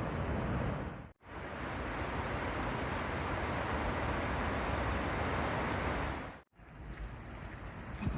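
Steady rush of water pouring over a river weir on the River Teme, broken off abruptly twice, with a quieter stretch of the same rushing after the second break.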